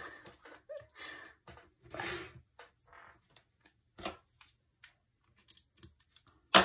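Paper and sticker sheets rustling as planner stickers are handled and peeled, with scattered light ticks and one sharp click near the end.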